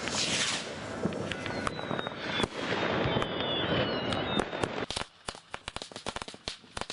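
New Year's Eve fireworks at close range: dense bangs and whistles from a firing battery. About five seconds in, this gives way to a fast string of sharp crackles from a firework throwing sparks at ground level.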